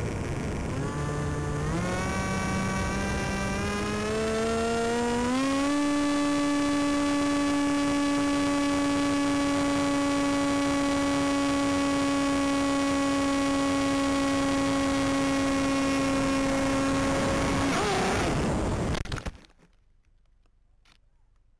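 RC airplane's motor and propeller heard from an onboard camera, over steady wind rush on the microphone. The motor note climbs in steps as the throttle comes up, then holds a steady pitch in flight. Near the end the motor note stops, the wind rush carries on for a moment, then everything cuts off suddenly to near quiet as the plane, its wing snapped under an overload, ends up on the ground.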